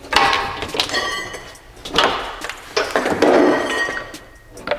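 Nissan 350Z's plastic radiator fan shroud, with its twin electric fans, being wrestled out of the engine bay: a run of irregular plastic clatters, knocks and scrapes against the radiator and surrounding parts.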